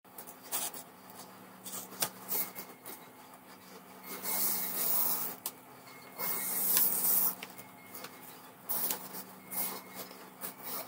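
A felt-tip marker drawing on paper: scratchy strokes of the tip against the sheet, two of them longer near the middle, with a faint steady hum underneath.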